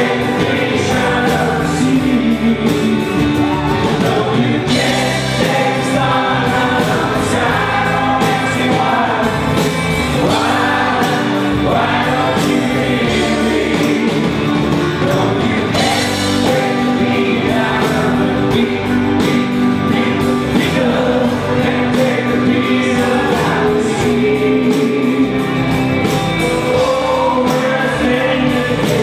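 A live band playing a song: a man sings lead into a microphone over electric bass guitar and drums.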